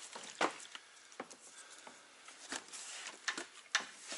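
About five sharp, unevenly spaced knocks and clicks over light rustling: hands handling a plastic fuel jug and parts at the truck engine's fuel filter housing.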